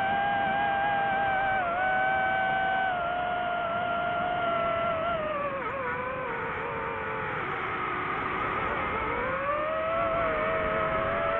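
DJI FPV drone's propellers and motors whining steadily, the pitch sagging as the throttle is eased about halfway through, then climbing back as power is added.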